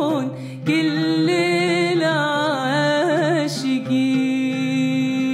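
A woman sings an ornamented, wordless Arabic melisma with a wavering pitch, accompanying herself on an oud, then holds one long steady note near the end.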